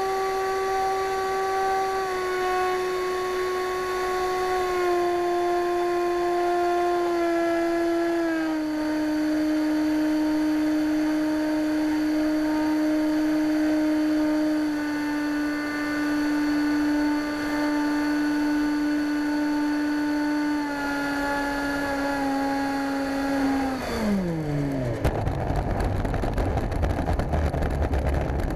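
Electric ducted fan of a model F-16 jet whining steadily, its pitch stepping down in several stages as the throttle is eased back on the landing approach. About 24 seconds in the whine falls away sharply as the throttle is cut, and a rough rumbling noise takes over as the model rolls along the runway.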